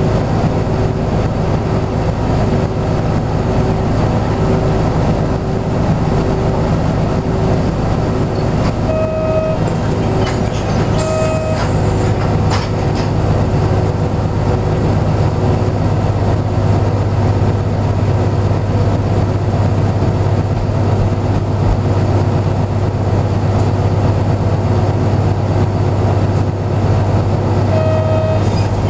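Diesel engine of a 1999 Hino Blue Ribbon city bus idling steadily while the bus stands still, heard from inside the cabin. Three short electronic beeps sound over it, two close together about a third of the way in and one near the end.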